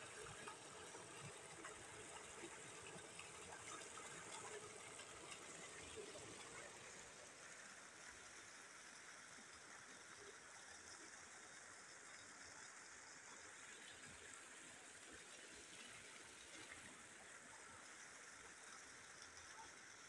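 Faint, steady rush of floodwater spilling over a low concrete weir into churning foam. It is a little louder in the first few seconds, then settles lower.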